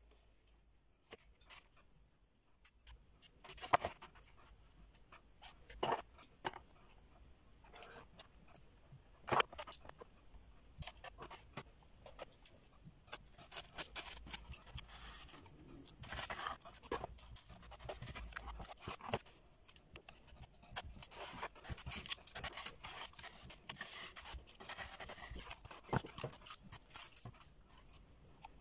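A pen scratching across corrugated cardboard in long, fast strokes as shapes are traced and lines ruled. A few sharp knocks in the first ten seconds.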